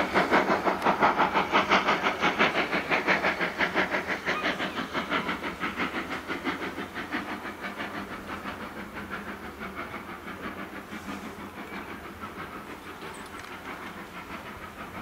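Steam locomotive chuffing as it pulls a train away, its regular exhaust beats fading steadily as it draws off into the distance.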